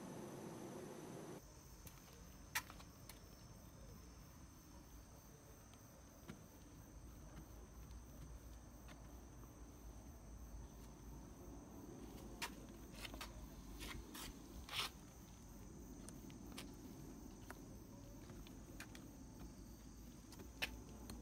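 Near-silent outdoor background with a faint steady high whine and a few scattered light clicks and taps, most of them bunched together about twelve to fifteen seconds in.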